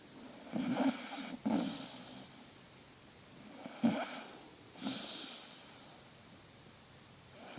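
Staffordshire bull terrier puppy snoring in its sleep: rough snoring breaths coming in pairs, one pair about half a second in and another about four seconds in, each followed by a quiet pause.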